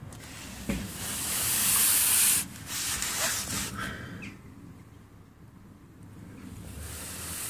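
Handling noise from a phone being moved about in the hand: a rustling hiss that starts about a second in and cuts off at about two and a half seconds, followed by a few fainter rubbing noises.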